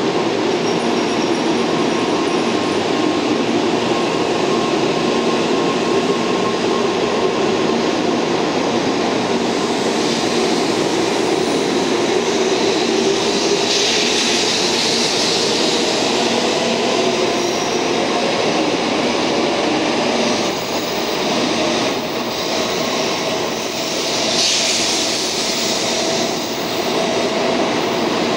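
N700 series Shinkansen pulling out of the station and gathering speed, a steady rumble of its cars rolling past the platform. Two brief hissing swells come about halfway through and again near the end.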